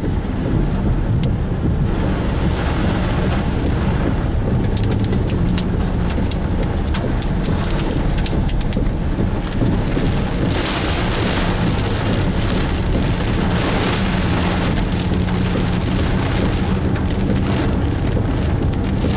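Heavy rain pelting a moving car's roof and windshield, heard from inside the cabin over the car's steady low drone. A few seconds in comes a spell of rapid sharp taps, and the rain surges louder twice in the second half.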